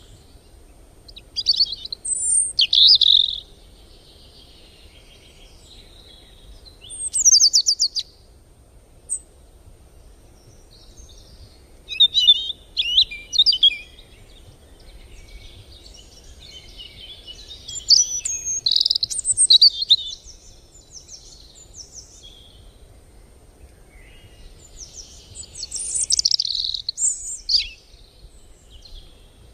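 Birds chirping and singing in about five short bouts of quick, high notes, with quieter gaps between, over a faint steady low background.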